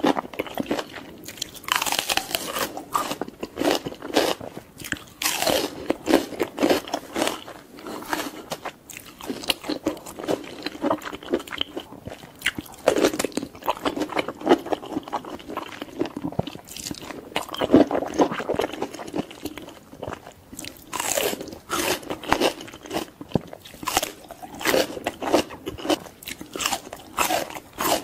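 Close-miked crunching bites and chewing of mushrooms and cucumber, a rapid irregular run of crisp crackles that goes on throughout.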